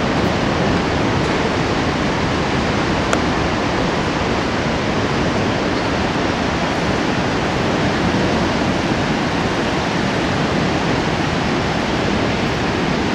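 Steady rush of a whitewater river's rapids.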